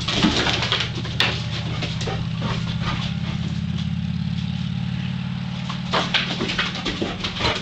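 An engine idling steadily with a rapid pulse. Scattered clicks and taps of a Labrador Retriever puppy's claws on wooden deck boards as it walks about, most near the start and again late on.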